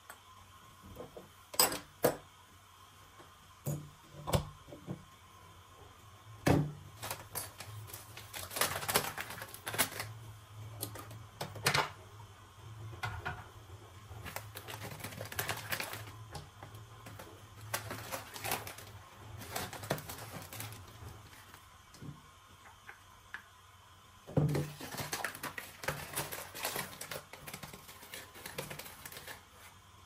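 A few sharp clicks of small metal espresso parts being handled and set down, then a kraft paper coffee bag crinkling and rustling in repeated bursts as it is opened and handled.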